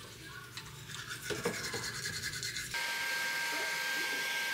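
Quick scratchy rubbing, then about three seconds in a steady whirring appliance with a high whine switches on abruptly.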